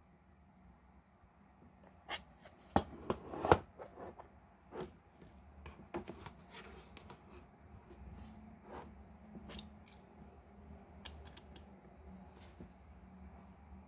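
Hands handling the pieces of a miniature barn diorama and a small model car. A quick run of sharp clicks and taps comes about two to four seconds in, the loudest near the end of that run, followed by scattered lighter clicks and faint rubbing.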